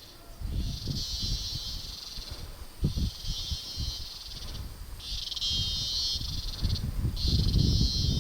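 Insects buzzing in a high, shrill chorus that comes in long pulses of nearly two seconds with short breaks between, over an irregular low rumbling.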